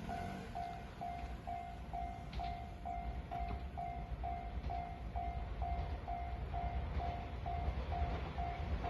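Japanese railway level-crossing warning bell ringing steadily, about three strikes a second, over a low rumble that slowly grows louder.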